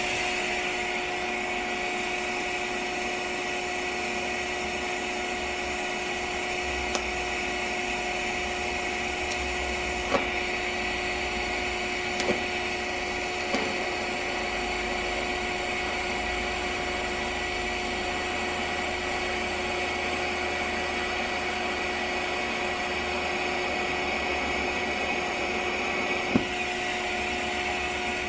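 DC TIG welding arc from a TIG torch on a MIG welder set to about 60 amps, running steadily as a hiss with a constant whine, broken by a few sharp pops. The arc is still hot enough to blow a hole through the two thin pieces being tacked.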